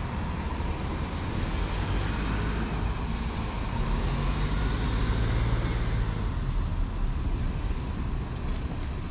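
A small car driving slowly past. Its low engine hum and tyre noise build about four seconds in and fade after about six seconds, over steady road noise.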